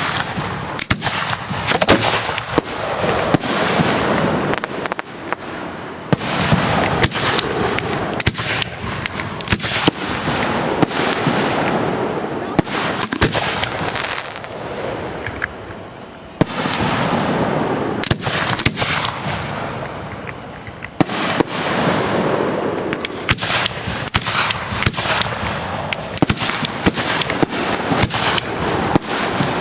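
Aerial fireworks display: shells bursting in quick succession with many sharp bangs and crackles, easing off twice for a moment before building again.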